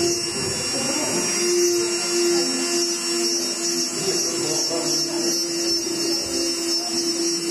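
Small handheld rotary engraving tool with a ball-tipped burr, running with a steady hum as it grinds dots into the hard shell of a dried gourd.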